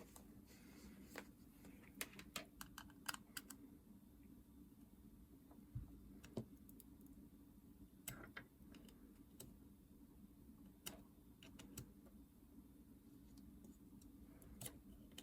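Faint, scattered clicks and taps of small plastic parts being handled on a workbench, over a low steady hum.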